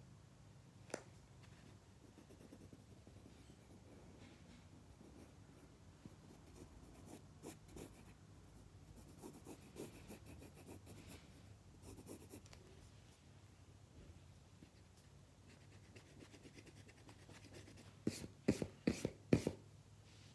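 Pencil scratching faintly on lined notebook paper as a sketch is drawn, with a sharp click about a second in and a quick run of about five louder taps near the end.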